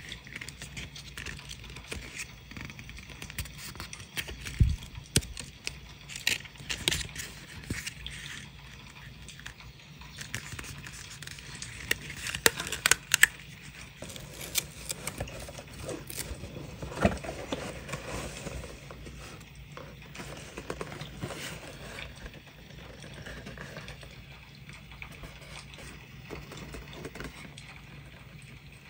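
Paper and scrapbooking materials being handled: rustling and scraping with scattered light taps and clicks, busiest around the middle.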